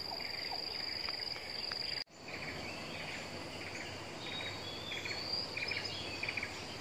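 Tropical forest ambience: a steady high-pitched insect drone with repeated short chirps, and a few brief bird whistles about five seconds in. The sound drops out for a moment about two seconds in.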